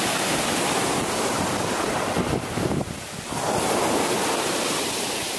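Sea surf: waves breaking and washing up the beach, with wind on the microphone. There is a brief lull in the wash about three seconds in.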